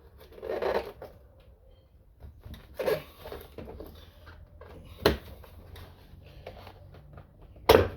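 Car door trim panel being pried away from the door, with plastic scraping and rattling and sharp pops as its retaining clips let go, one about five seconds in and the loudest near the end.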